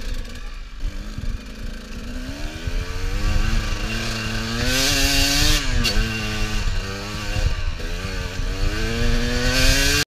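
Enduro dirt bike engine revving up as the bike rides off along a dirt forest track: the pitch climbs steadily, drops sharply about six seconds in and briefly again a moment later, then climbs once more.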